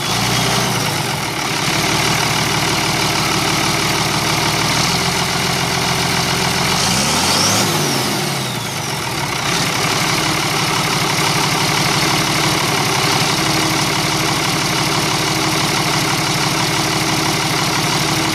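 Ford 9600 tractor's turbocharged six-cylinder diesel engine idling steadily. About seven seconds in it is revved up and let fall back, and the turbo's whistle rises and falls with it.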